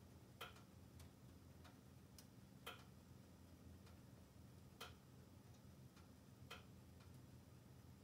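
Logs burning in a wood-burning stove: faint, irregular crackles and pops, four sharper ones among several weaker ticks, over a low steady hum.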